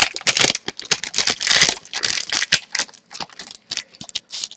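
Rapid crinkling and rustling of hockey trading-card packaging being handled and opened by hand. It is busiest in the first couple of seconds and thins out after.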